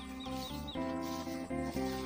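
Background music: a melody of sustained notes changing every quarter to half second, with a quick run of short high chirp-like notes in the first half second.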